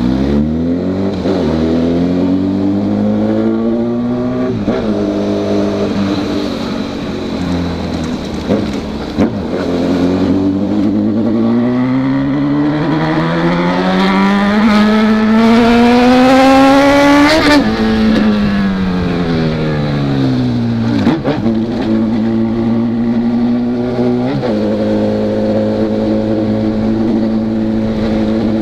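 2012 Honda CB1000R's inline-four engine pulling through the gears: its pitch climbs and breaks at each upshift. A long, hard pull about two-thirds of the way in rises to high revs, then the engine drops back with a couple of downshift blips and settles to a steady cruise near the end.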